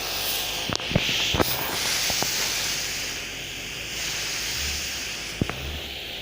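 Jacto Clean J6800 pressure washer spraying: a steady hiss of the high-pressure water jet, with a few short sharp ticks.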